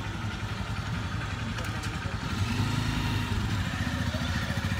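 Motorcycle engine running at low speed, getting louder a little over two seconds in.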